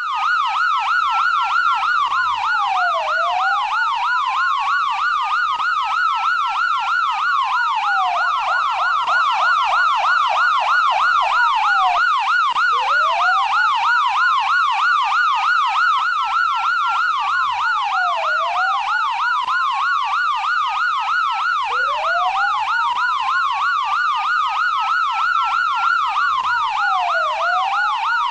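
Electronic siren of a Dial 112 police emergency vehicle sounding continuously. A fast warbling yelp runs under a slower wail that climbs over several seconds and drops back, about every five seconds.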